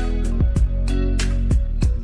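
Background music with a steady drum beat over sustained bass and melody notes.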